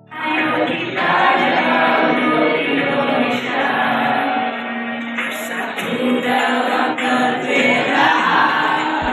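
A class of schoolchildren singing a song together in unison, loud and lively.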